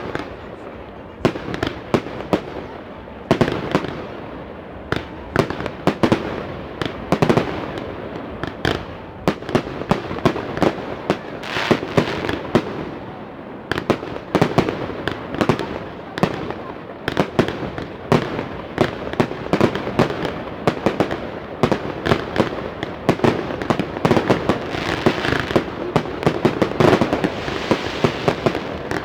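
Fireworks display: a rapid, continuous run of sharp bangs and crackling bursts, growing denser and louder over the last several seconds.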